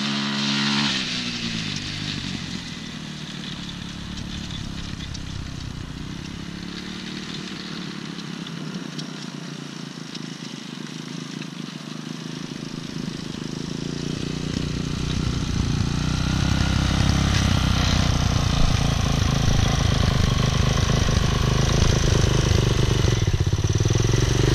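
200 cc dirt bike engine passing close, its pitch dropping about a second in as it rides away, then running fainter in the distance before growing steadily louder from about halfway as the bike comes back.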